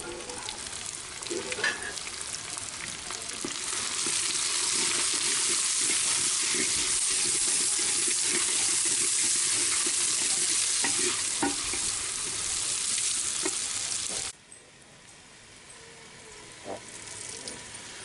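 Sliced onions sizzling in hot mustard oil in a clay handi, with a wooden spatula stirring and knocking against the pot. The sizzle grows louder about four seconds in and drops suddenly to a quieter hiss about fourteen seconds in.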